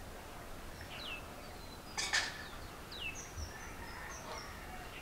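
Faint bird calls: a few short, downward-sliding chirps and some brief high notes, with one sharper call about two seconds in.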